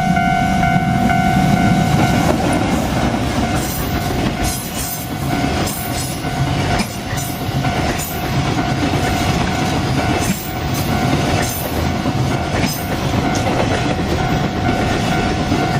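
A train passing over a railway level crossing, its wheels clicking over the rail joints in a steady rhythm, while the crossing's warning bell keeps ringing.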